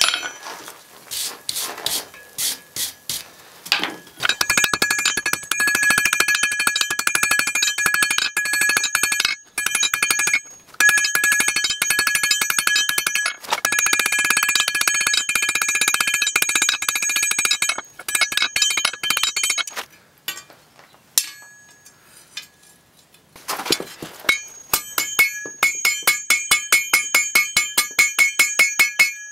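Hand hammer striking hot pattern-welded steel on an anvil in fast runs of blows, the anvil ringing with a steady, bell-like tone between strikes. After a short pause about two-thirds of the way in, the blows come evenly at about three a second.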